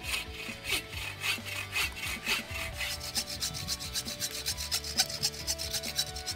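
Hand saw cutting into a log, its blade rasping through the wood in steady back-and-forth strokes, about two a second at first, then quickening to three or four a second about halfway through.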